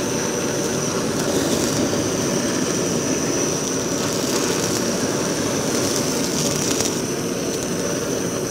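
Handheld gas blowtorch burning steadily at full flame, a continuous rushing hiss, as it sears the salted skin of a blackthroat seaperch fillet.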